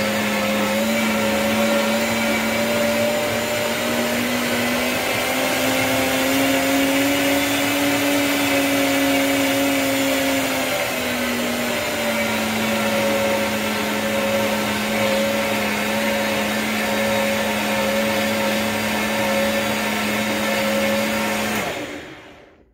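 BioloMix 2200 W blender motor running at speed through a thick mixture with a steady whine. Its pitch rises about four seconds in and drops back around eleven seconds as the speed dial is turned. Near the end it is switched off and winds down quickly into silence.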